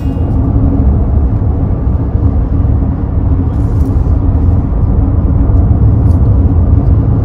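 Steady road noise inside a car driving at highway speed: a low, even rumble of tyres and engine.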